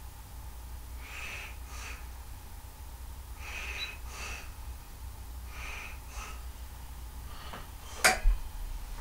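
A person breathing close to the microphone, soft breaths in pairs about every two seconds. About eight seconds in, a single sharp click or knock, the loudest sound.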